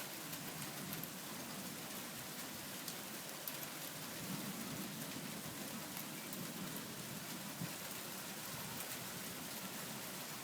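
Heavy rain pouring steadily, mixed with hail, with scattered light ticks of drops or hailstones striking.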